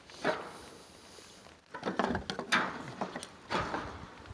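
Footsteps crunching over dry, weedy ground in three uneven bursts of rustling and crackling.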